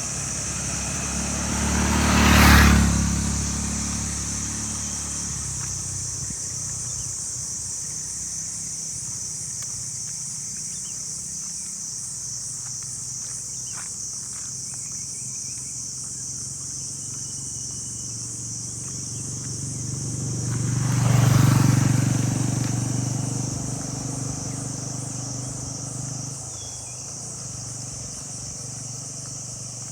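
Two motor vehicles pass close by, each swelling up and fading away, the first about two seconds in and the second about twenty-one seconds in. Under them runs a steady, shrill drone of insects.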